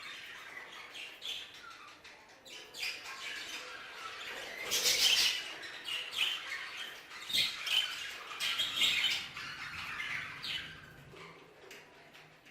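A flock of frilled Hagoromo budgerigars chattering, with rapid chirps and squawks, loudest about five seconds in.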